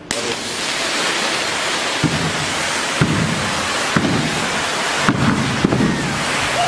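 Stage pyrotechnic spark fountains hissing loudly and steadily. From about two seconds in, a few knocks and lower rumbling sounds break through the hiss.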